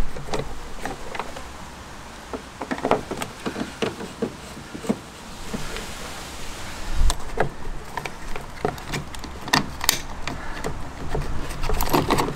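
Screwdriver and fingers working at a van's plastic fuel-filler housing: irregular small clicks, taps and scrapes of metal on plastic, with a louder clatter near the end as the housing is pulled loose.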